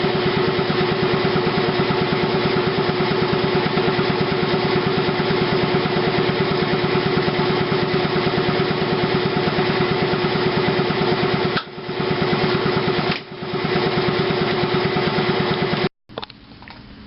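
Electric motor of a dust-cleaning machine running steadily at full power, a loud hum with a fast even pulse, dipping briefly twice and then cutting off abruptly near the end.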